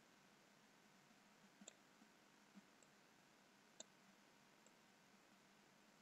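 Faint clicks of a computer mouse button, a few spaced a second or two apart, over near silence.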